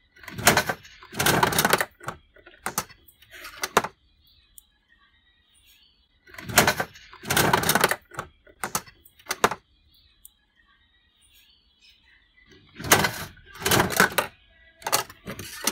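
Capsule-toy vending machine being worked: three rounds of loud mechanical clattering, clicking and clunking from its turning crank and the capsule inside, about six seconds apart.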